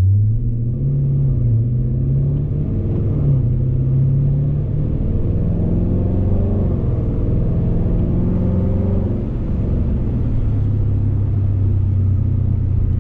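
Car engine heard from inside the cabin, its pitch climbing and falling back several times as the car accelerates through the gears, then holding steady near the end.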